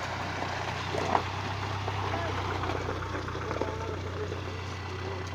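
Water pouring and trickling off a Mitsubishi Pajero fresh out of a river, over a steady low hum of its engine running. One sharp knock about a second in.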